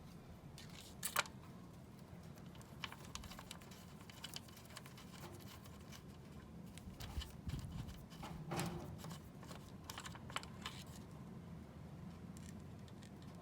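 Scattered light clicks and taps of hand tools and parts being handled on a scooter, the sharpest about a second in and a busier run in the second half, over a faint steady low hum.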